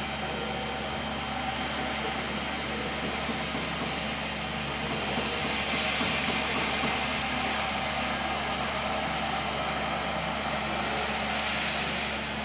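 CNC machine running steadily while it cuts a part: a constant motor hum with a hiss that grows brighter for a couple of seconds in the middle.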